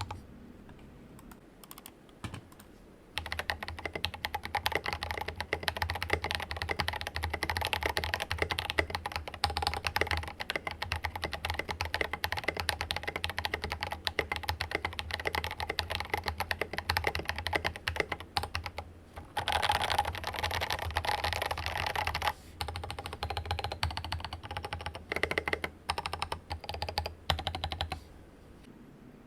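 Typing on a mechanical keyboard with Drop Invyr Holy Panda tactile switches on a Rama Works Kara, a silicone-mounted board. After a few scattered keystrokes, fast continuous typing starts about three seconds in and runs almost unbroken until shortly before the end.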